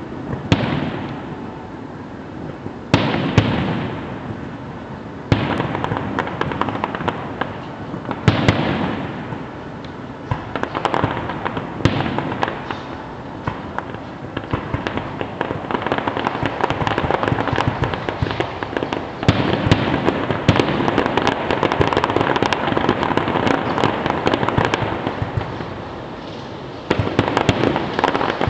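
Fireworks finale heard from afar: a dense, continuous crackle of bursting shells, broken every few seconds by sharp booms. The barrage grows heavier in the second half and again near the end.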